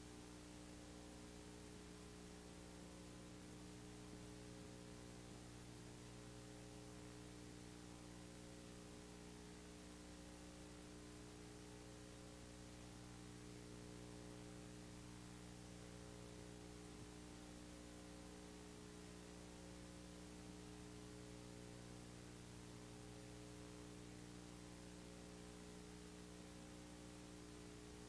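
Near silence: a steady low electrical hum with its overtones, under a faint even hiss.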